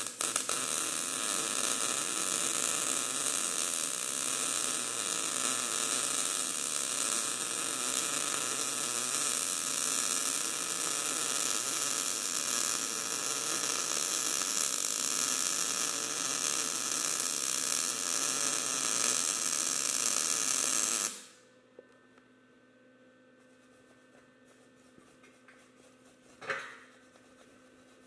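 MIG welding arc running on steel as the replacement cutting teeth are welded onto a tractor auger: one continuous bead for about twenty seconds, then the arc cuts off suddenly. A faint steady hum follows, with one brief noise near the end.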